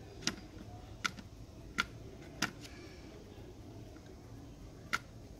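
Five small, sharp clicks at irregular intervals over a faint steady hum, as a wire is soldered onto a Bluetooth module's circuit board by hand.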